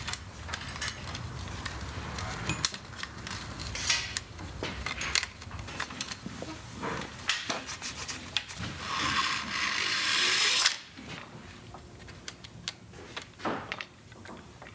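Hands and tools working on a mountain bike frame and its cable routing: scattered clicks, knocks, rattles and rubbing of metal parts. A steady hiss runs for about two seconds in the second half and cuts off suddenly.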